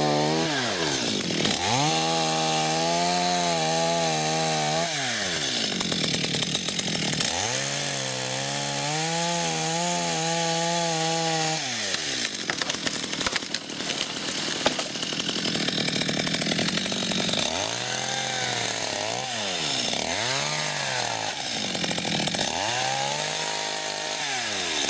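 Stihl two-stroke chainsaw revving up to full throttle and back down as it saws through a tree trunk. There are two long cuts of about four seconds each, then three shorter bursts of throttle near the end.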